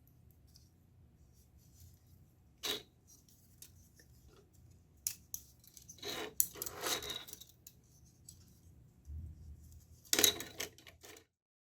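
Scattered clicks, taps and short rustles of small objects being handled, over a faint low hum. The busiest stretch comes about six to seven seconds in, with a sharp clatter near ten seconds, and then the sound cuts off suddenly.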